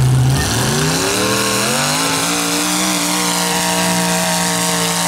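Mud-racing pickup truck's engine revving up hard as it launches, its pitch climbing steeply over the first two seconds, then held at high revs as the truck runs through the mud pit.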